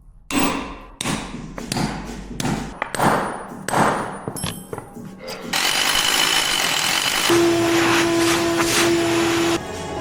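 Sharp metal knocks and clanks, then about five and a half seconds in a two-post car lift's electric hydraulic power unit runs with a steady whir. A steady hum joins partway through, and both cut off abruptly shortly before the end.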